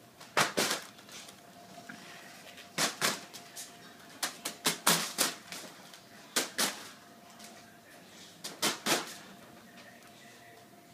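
Mylar foil birthday balloon being struck by spinning ceiling fan blades: sharp crinkly slaps, mostly in pairs, with a quicker run of about five near the middle.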